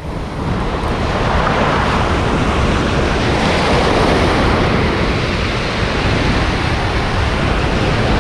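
Sea surf breaking and washing up the shore, with wind buffeting the microphone; the rush swells about a second in and stays loud.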